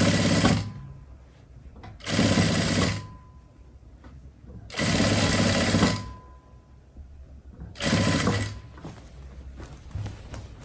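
Sewing machine stitching in short runs: a run that stops just after the start, then three more bursts of about a second each, with quiet pauses between.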